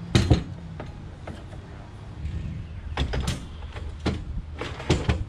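Steel stand frames knocking and rattling against each other and the pickup bed as they are loaded, with a sharp clank at the start, another around three seconds, and two more near the end.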